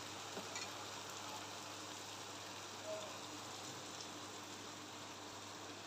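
Minced meat (qeema) frying in a pan: a faint, steady sizzle, with a few light ticks about half a second in.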